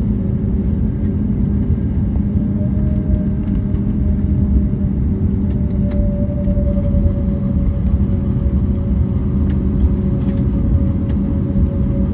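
Cabin noise inside an Airbus A321neo on the ground after landing: a steady low rumble from the wheels and airframe with the engines' steady hum, and light clicks and rattles from cabin fittings.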